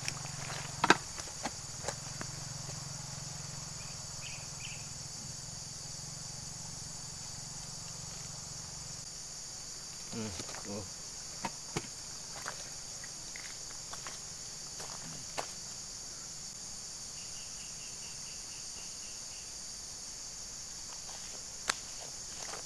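Steady high-pitched drone of a tropical insect chorus. A few sharp clicks and knocks come from a fishing rod and net line being handled, the loudest near the end.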